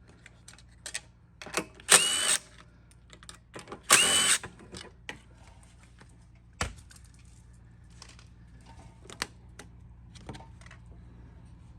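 Two short whirring bursts of a small power tool about two seconds apart, each ending on a rising pitch, then scattered clicks and knocks of parts being handled on a lawn mower engine.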